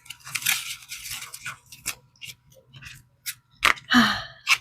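Paper bills being handled and shuffled: irregular rustling and crinkling with a few small clicks and scrapes.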